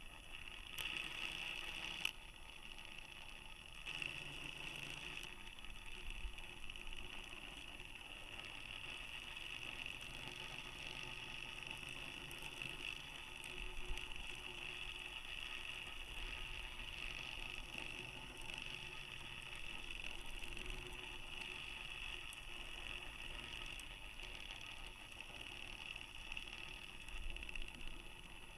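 Faint steady high whine of the small DC motor counter-rotating the balloon payload's camera, wavering in strength, over a low rumble, with a sharp click about two seconds in.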